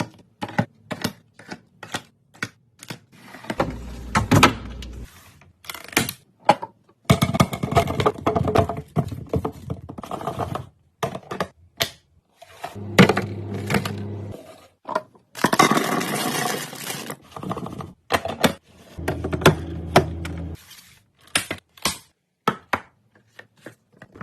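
Clear plastic fridge storage boxes being handled: many sharp clicks, taps and thunks of hard plastic, broken by a few longer stretches of scraping and rustling.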